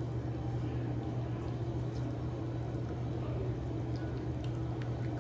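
A steady low background hum, with faint wet clicks and squishes of chewing fried chicken scattered through it.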